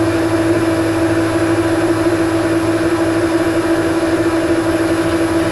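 Weiler Matador metal lathe running steadily with its spindle turning and carriage on slow power feed, taking a very light cut: an even mechanical hum with one strong steady tone.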